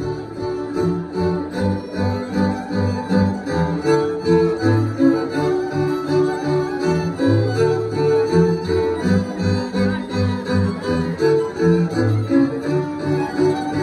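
Górale (Polish highlander) folk string band playing an instrumental tune: fiddles carry the melody over a bowed bass that pulses on the beat.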